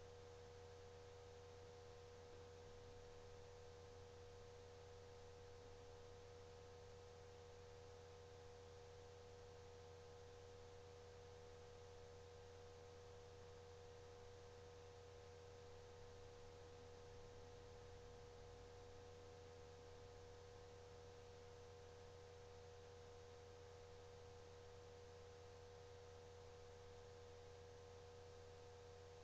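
Near silence: a faint, steady hum and hiss with a constant tone, unchanging throughout.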